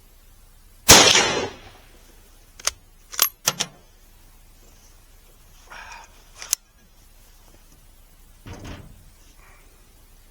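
A single shot from a Mauser K98 rifle chambered in 7.92×57mm, a sharp crack that dies away in under a second. About two seconds later come several quick metallic clicks as the bolt is worked.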